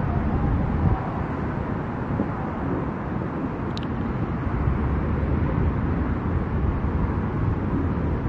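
Steady low outdoor background rumble with no clear distinct source, and one brief high chirp about four seconds in.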